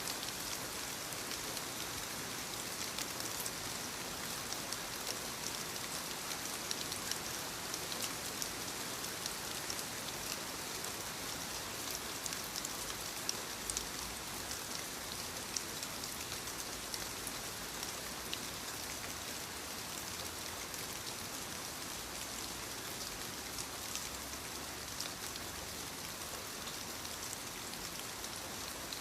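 Steady rainfall: an even hiss of rain with many small, sharp drop taps scattered through it.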